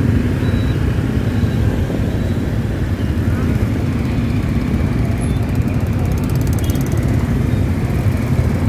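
Motor scooters running in slow, dense traffic, heard from a riding scooter among them: a steady low engine and road rumble.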